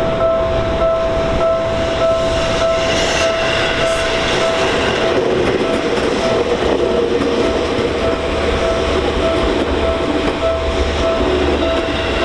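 Japanese level-crossing alarm ringing its repeating electronic bell tone about twice a second, while a Seibu Shinjuku Line train passes with a steady rumble and wheel clatter on the rails.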